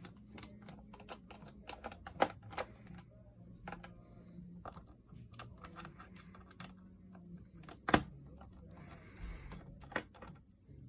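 Irregular small clicks and taps of a small screwdriver working the screws out of a plastic laptop base, with two sharper knocks, one about two seconds in and a louder one later. A faint low hum runs underneath.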